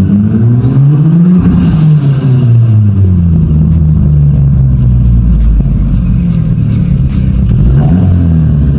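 Nissan 240SX (S14) engine revving: its note climbs for about a second and a half, falls back, then climbs again near the end.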